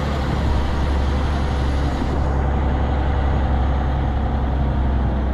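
Semi truck's diesel engine running with road noise while driving: a steady low drone.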